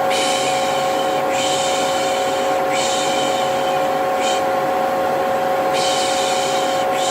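Vacuum cleaner running steadily with a constant motor whine, overlaid with repeated 'shh' shushing ('piş piş'), each lasting about a second, used as soothing noise to calm a baby.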